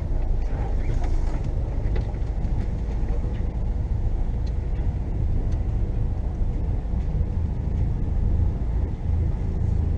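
Tipper truck's diesel engine running at low speed, heard from inside the cab as the truck creeps into the loading position; a steady low rumble.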